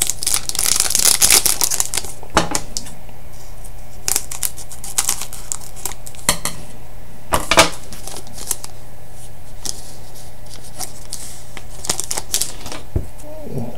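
Hockey trading cards being handled: a sliding rustle near the start, then scattered light clicks and taps as cards are moved and set down, two louder ones about halfway through, over a steady electrical hum.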